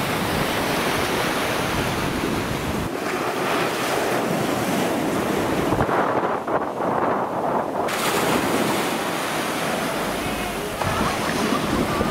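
Small sea waves breaking and washing onto a sandy beach and against a harbour slipway, with wind rumbling on the microphone. The surf sound shifts abruptly a few times.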